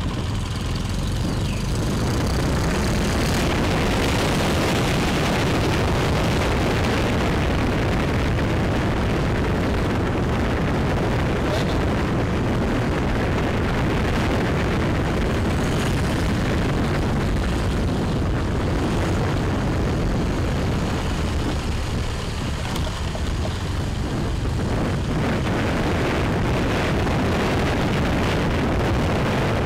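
Wind buffeting the microphone of a moving motorbike: a steady low rumble, with the bike's engine and road noise underneath.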